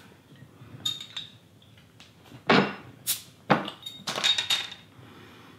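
A glass beer bottle being opened with a metal bottle opener: a few sharp clicks and knocks with a metallic clink as the crown cap is pried off, the loudest about two and a half and three and a half seconds in.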